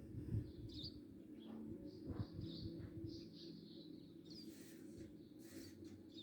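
Birds chirping: short, high calls scattered every second or so over a steady low background hum.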